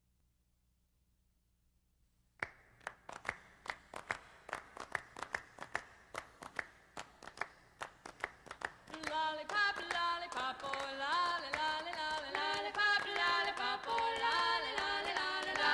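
Background music: after about two seconds of near silence, a song starts with a steady clapping beat, and about nine seconds in, several voices come in singing in harmony over the claps.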